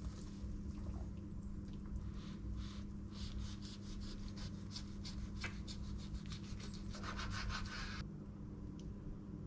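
Knife sawing back and forth through a cheeseburger's bun and patty on a wooden cutting board, a quick run of short scraping strokes that stop near the end, over a steady low hum.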